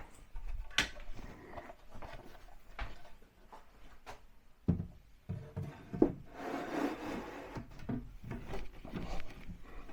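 A wooden shelf being slid into a kitchen wall cabinet and set onto its shelf-support pegs: wood rubbing and scraping against the cabinet, with a handful of scattered knocks.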